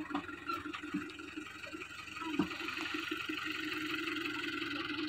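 Tractor diesel engine idling steadily, with a few faint knocks.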